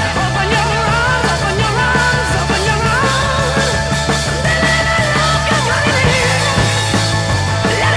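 Rock music soundtrack: a steady bass line and drums under a wavering lead melody. The boats' engines are not heard.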